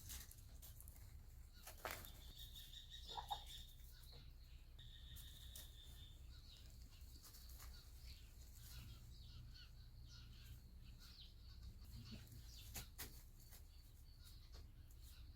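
Faint ambience: scattered high bird chirps and a few sharp clicks and rustles over a steady low hum.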